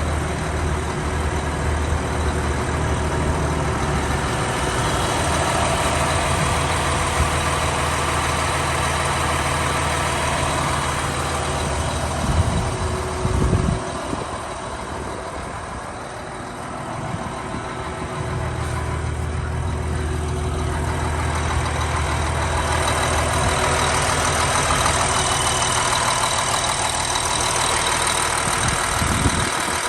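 Diesel engine of a Liebherr R946 SHD long-reach excavator running steadily. There are a few clunks about twelve to thirteen seconds in, then the engine's low hum fades for a few seconds before it picks up again.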